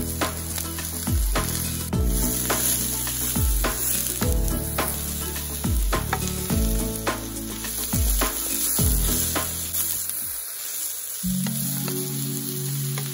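Vegetables sizzling in a hot wok as a wooden spatula stirs and tosses them, with scraping strokes against the pan, over background music with a steady beat.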